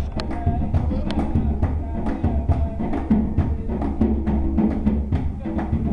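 Dance music with a quick drum beat under a melody.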